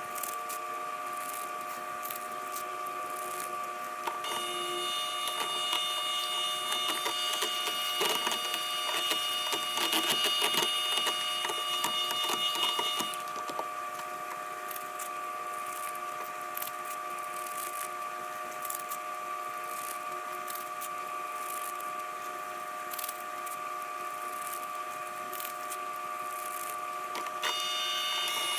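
Electric hand mixer running, its beaters whipping gelatin powder into water and raising foam, with frequent light clicks. Its whine gets louder and higher from about four seconds in until about thirteen seconds, and again near the end.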